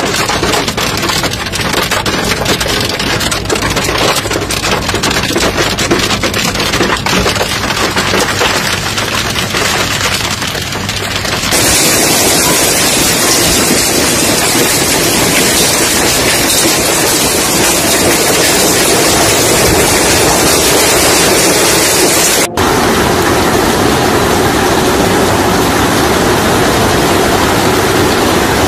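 Hail and heavy rain pelting pavement, cars and roofs: a dense, loud hiss of impacts with many separate clicks of stones in the first part. The sound changes abruptly twice as one stretch of storm gives way to another.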